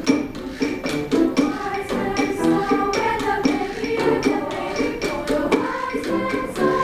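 Women's choir singing a piece with a steady, rhythmic percussive accompaniment.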